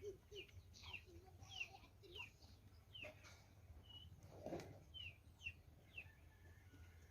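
Faint bird chirps: short, high notes sliding downward, repeated every half second or so, with one brief steady whistle near the middle. A soft knock comes about four and a half seconds in.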